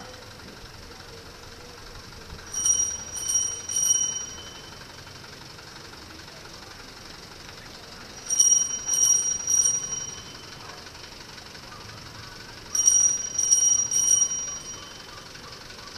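A small high-pitched bell struck three times in quick succession, the set of three repeating every four to five seconds. Under it runs the steady murmur of a procession crowd.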